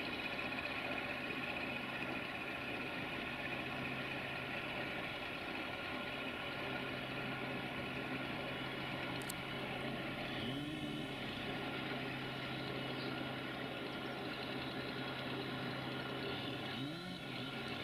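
A CFR 060-DA (LDE2100) diesel-electric locomotive's Sulzer diesel engine running with a steady drone as it hauls a train of tank wagons at low speed. Two short rising notes break in, about ten seconds in and again near the end.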